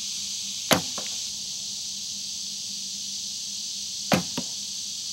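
Two shots from a traditional wooden bow, about three and a half seconds apart: each a sharp snap of the string on release, followed about a third of a second later by a softer thud of the arrow striking a foam 3D target.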